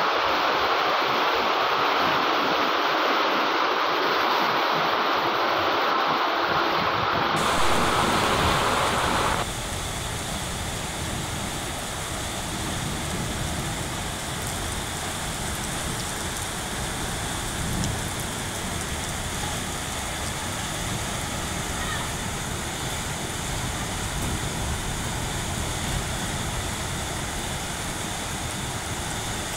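Floodwater rushing steadily through a narrow concrete passage, a loud even rush of water. About nine seconds in it gives way to a quieter, wider hiss of floodwater running down a street.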